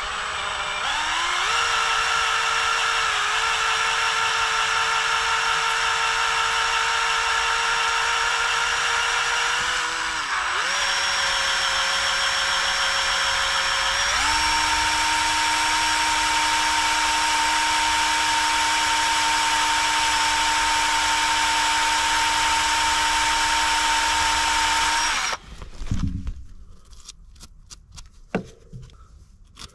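Electric drill running steadily as it bores out a stud in an excavator's exhaust manifold flange, the bit lubricated with spray. The motor dips briefly about a third of the way in, runs at a higher pitch from about halfway, and stops near the end, followed by a few light clicks.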